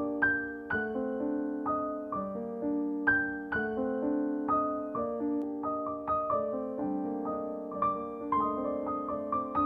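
Background piano music, a melody of separately struck notes that each ring and fade over chords.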